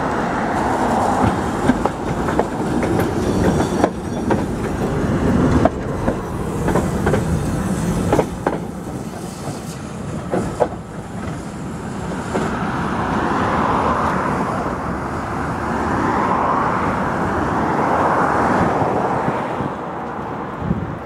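T3-VPNP tram, a modernised Tatra T3, running past on its track. Its wheels knock and click over the rail joints, then the running hum swells and fades several times as it moves on.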